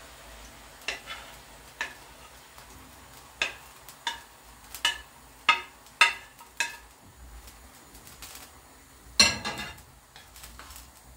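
Kitchenware clinking: about ten sharp taps and clinks over several seconds, then a louder scraping clatter about nine seconds in.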